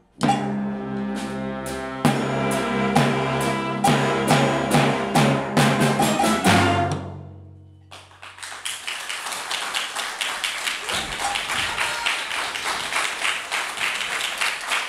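Children's wind orchestra with timpani and percussion playing the closing bars of a piece: loud accented chords with drum strokes, ending on a final chord whose low note rings out and fades about seven seconds in. About a second later audience applause starts and keeps on.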